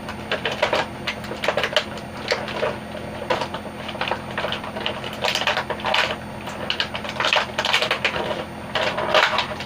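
Irregular clicks and crackles of a plastic clamshell blister tray being handled and flexed while an action figure's arm is worked free of it, over a steady low hum.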